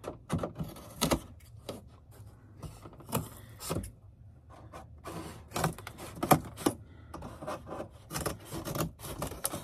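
Cardboard being handled and worked by hand while a box is built: rubbing and scraping with a scattering of short, sharp knocks and taps, the loudest about six seconds in.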